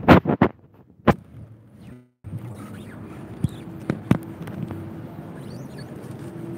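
A phone's microphone being handled and set down on asphalt: rubbing and knocks at first, then a sharp knock about a second in. After a brief dropout comes a steady outdoor background with a few scattered clicks and a faint steady hum.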